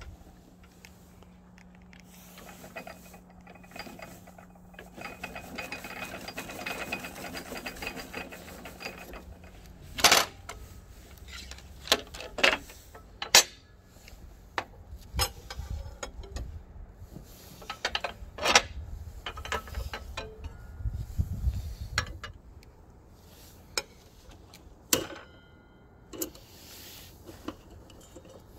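The blade-height crank of a Bosch GTS 635-216 table saw being turned by hand, its gear mechanism grinding steadily for several seconds. After that come a series of separate sharp clicks and knocks as parts around the saw blade are handled.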